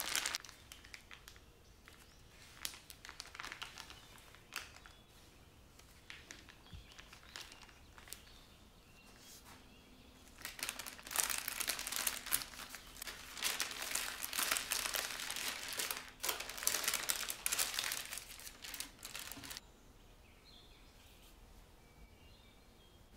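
Parchment paper crinkling and rustling as it is handled and peeled away from a rolled sponge cake. It comes in sparse rustles at first, grows dense and busier past the middle, then stops abruptly a few seconds before the end.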